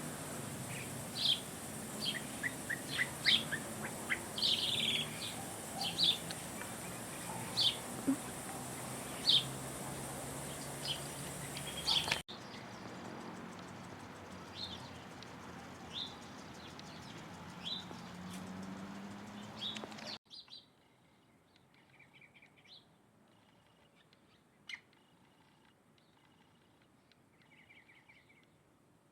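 Songbirds chirping: short, sharp, high calls, several a second at times. The sound cuts abruptly about twelve seconds in and again about twenty seconds in, each time to a quieter recording with fewer, fainter chirps.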